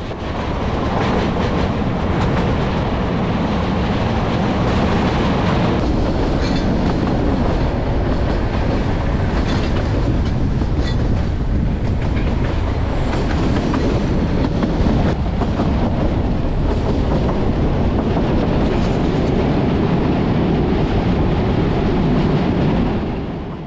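Kangra Valley Railway 2 ft 6 in narrow-gauge passenger train running along the line, heard from an open coach window: a steady rumble of wheels on rail with clickety-clack over the rail joints. It fades out near the end.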